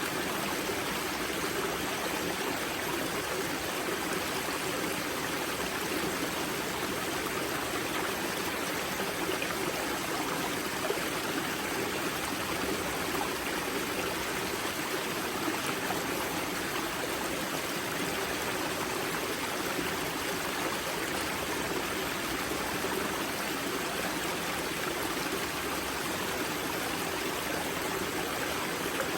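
Water from the Grza river's karst spring flowing and splashing over rocks in a steady, unbroken rush.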